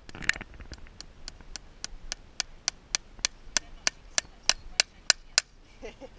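Farrier's hammer tapping a horseshoe nail through the shoe into the hoof wall: a steady run of sharp metallic taps, about three a second, growing louder, then stopping abruptly.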